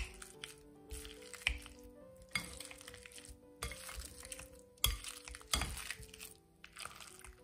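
Stainless-steel potato masher pressing steamed kabocha squash in a glass bowl: repeated mashing strokes about once a second, with the masher clinking against the glass now and then. Soft background music with held notes underneath.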